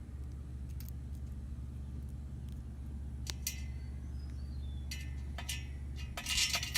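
Bolts and washers clinking against the trampoline's steel frame tubes as they are fitted: a few light clicks, then a busier run of metal clinks near the end, over a steady low hum.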